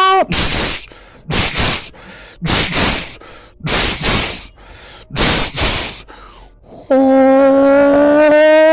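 A tram's sound: a horn-like tone that cuts off just after the start, then five short hissing bursts about a second apart, then the horn-like tone again from about seven seconds in, its pitch slowly rising.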